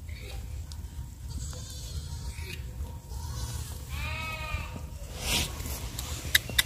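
A goat bleats once, about four seconds in, over a low rumble, with a few sharp clicks near the end.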